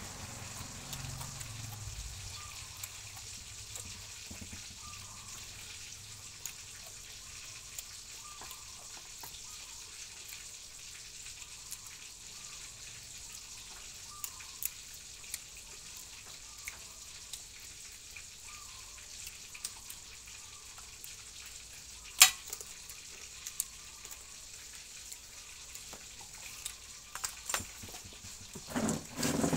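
Steady hiss with scattered small clicks and smacks of a man eating by hand, chewing and handling his food. One sharp click about three-quarters of the way through, and a cluster of louder knocks near the end.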